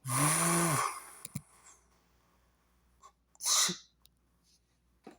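A person sneezes once at the very start, a voiced burst over a wide hiss lasting under a second. A short hiss follows about three and a half seconds in.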